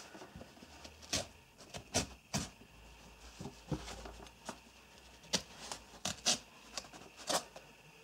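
Serrated tanto knife blade cutting through nylon seatbelt webbing: about eight short, sharp snips and rasps as each cut goes through, spread unevenly, with the loudest near the end.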